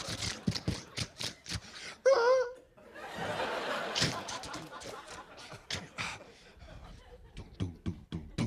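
Sound effects made with the mouth into a microphone: rhythmic clicks about three or four a second, and a short wavering high cry about two seconds in. Studio audience laughter follows the cry.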